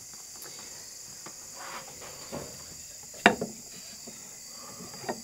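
Steady high chirring of evening insects in a field. A single sharp knock about three seconds in, from handling at the lectern.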